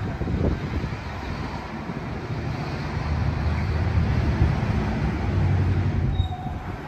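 Diesel bus engine running close by, a low rumble under street traffic noise that grows louder about three seconds in and eases off near the end.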